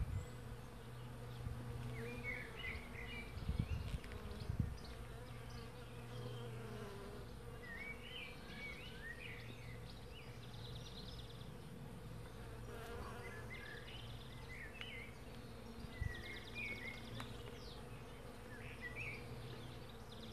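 Thousands of bees foraging together, a steady buzzing hum. Short high chirps come through several times, and there are a few low knocks about four seconds in.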